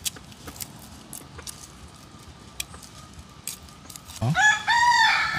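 Scattered light clicks and taps, then about four seconds in a rooster crows loudly: one long, high call that carries on past the end.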